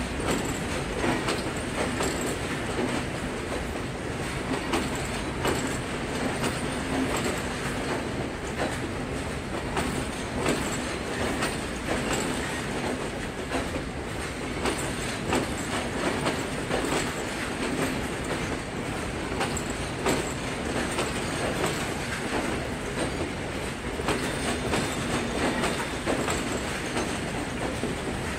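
Railway coaches rolling past close below: a steady rumble of the running train with repeated wheel clacks over the rail joints.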